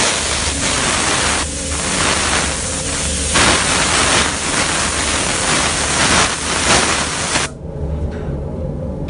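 Compressed-air spray gun hissing steadily as it sprays a full coat onto the hot part, at 2.5–3 bar, then cutting off suddenly about seven and a half seconds in. A low hum runs underneath.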